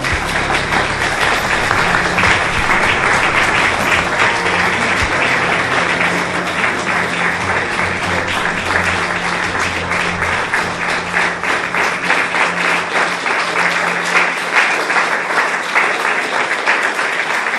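An audience applauding steadily, with music underneath that stops near the end.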